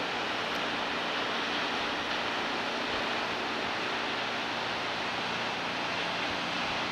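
Kegon Falls' waterfall making a steady, even rushing noise.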